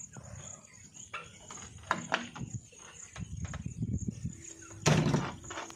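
Steady high insect chirring, with scattered knocks and a louder thump about five seconds in.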